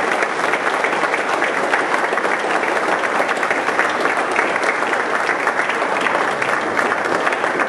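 Audience applauding: a dense, steady clatter of many people clapping.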